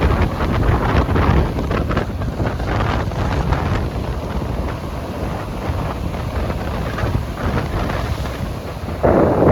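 Strong gusty sea wind buffeting the microphone, a low rumbling flutter, with the surf of the sea mixed in beneath; a stronger gust hits just before the end.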